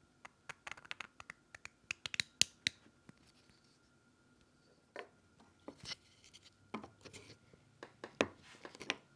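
Hard 3D-printed PETG-CF plastic parts clicking and scraping against each other as the two halves of an interlocking joint are handled and slid together. A quick run of small clicks comes in the first three seconds, then scattered clicks and knocks.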